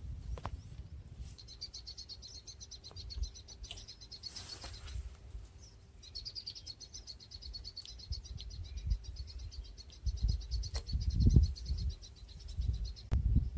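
A high, rapid, evenly pulsed trill from a calling wild creature, in two long runs with a short break about halfway through. Low rumbling and a few sharp clicks come in, loudest in the last few seconds.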